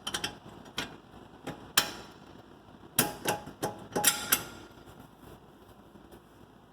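Steering stabilizer and its metal mounting hardware clinking and knocking as they are fitted by hand: about a dozen sharp metallic clicks, some with a brief ring. The clicks stop a little over four seconds in.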